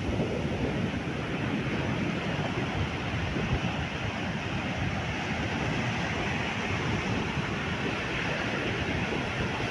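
Strong wind rushing steadily over the microphone, a constant loud rush with no break.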